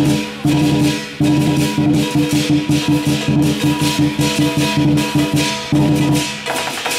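Chinese lion dance percussion: a large drum beaten in fast, steady strokes with cymbals clashing and shaking along, briefly pausing about a second in and again near the end.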